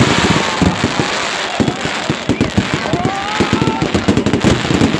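Fireworks display: a dense, rapid run of bangs and crackling from bursting shells, with no let-up.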